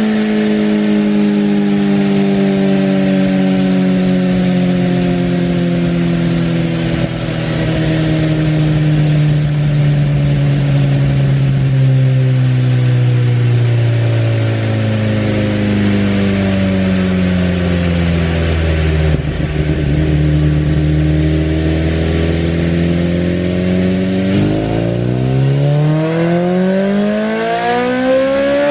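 2023 BMW S1000RR's inline-four with an Akrapovič full exhaust running in sixth gear on a chassis dyno. The revs sink slowly for over twenty seconds, then about four seconds from the end the throttle opens and the revs climb steeply in a power run.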